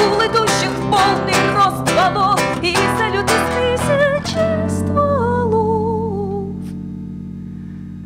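Acoustic guitar strummed hard with an electric bass guitar and a singing voice. About four seconds in the strumming stops, and a long held note with vibrato slides down in steps over the ringing chords, then fades.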